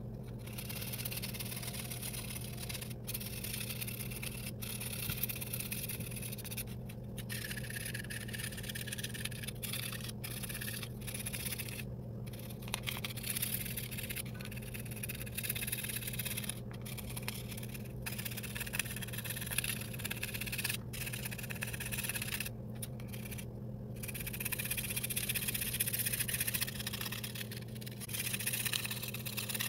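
Flat metal scraper blade scraping cosmoline-soaked wood from a Lee Enfield rifle handguard, in repeated rasping strokes with brief pauses between them. This is the cosmoline-laden surface layer being scraped off the wood.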